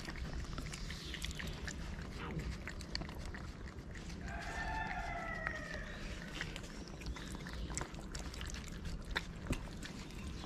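Cats eating wet food from plastic trays: close-up wet chewing and smacking, with many small clicks. About four seconds in, a drawn-out animal call sounds for over a second.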